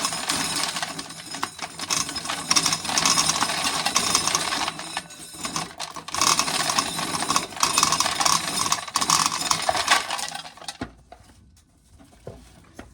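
Dried corn kernels rattling and clattering as a cob is shelled and the kernels pour into a pail, a dense run of clicks lasting about eleven seconds and then stopping suddenly. A few light tinkles follow as the last of the corn from the cob drops into a tin can.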